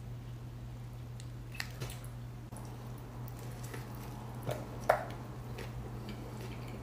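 Close-miked eating sounds: sauce squished out of a packet onto a fried chicken sandwich, then a bite into the sandwich with a sharp crunch about five seconds in, followed by chewing. A steady low hum runs underneath.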